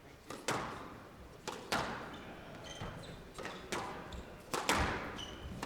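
Squash rally: the ball is struck by rackets and cracks off the court walls, sharp hits about once a second, often two in quick succession, with short high squeaks from shoes on the court floor.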